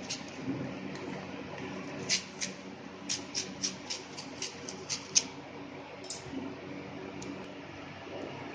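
Newspaper being handled and folded by hand: a quick run of about a dozen sharp, crisp paper crackles about two seconds in, roughly four a second, the last one the loudest, then a couple of single ticks. A steady low hum underneath.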